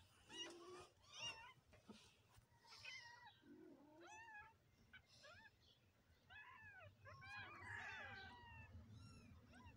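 Several young kittens mewing: many short, high, thin mews in quick succession, sometimes overlapping.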